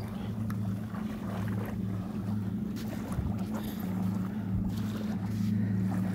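A motorboat's engine running steadily at a distance, a low even hum.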